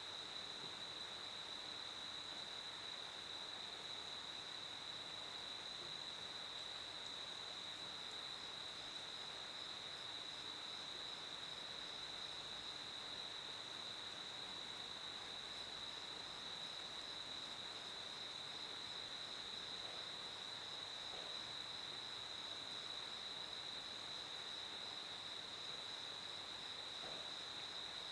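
Crickets chirping in one unbroken high trill, with a second, fainter insect pulsing a little higher that drops out and joins in again about halfway through.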